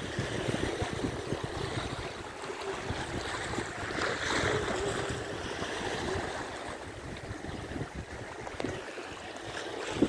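Small sea waves washing against low rocks along the shore, with a swell of surf about four seconds in, and wind buffeting the microphone.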